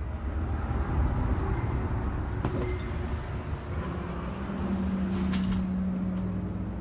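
Motor vehicle engine running, a deep steady rumble that swells a little, with a steady hum joining in about four and a half seconds in.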